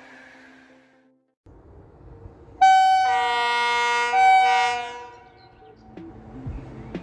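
EP09 electric locomotive's horn sounding a long blast and then a shorter one, each sagging slightly in pitch as it ends.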